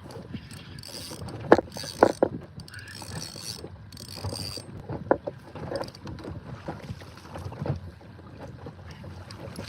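Fishing reel and tackle on a small boat while a hooked smoothhound fights near the landing net: several sharp knocks, the loudest in the first two seconds, and four short high hissing bursts from the reel as line goes out. Wind rumbles on the microphone underneath.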